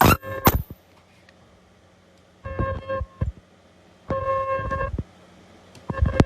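Handheld ultrasonic plastic welder firing three short welds, each a steady pitched tone lasting under a second at the same pitch every time. Two sharp clicks sound just before them.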